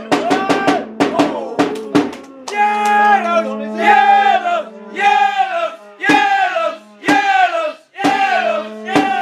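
Music track: a fast drum beat, giving way about two and a half seconds in to a held low note under a falling melodic phrase that repeats about once a second.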